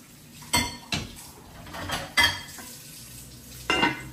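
A white pot of water and its lid knocking and clinking on a gas hob's grate as the pot is set down to boil. It makes a few sharp knocks, each with a short ring, and the loudest comes about two seconds in.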